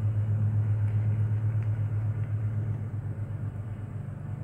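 A steady low hum that is louder at first and slowly eases off.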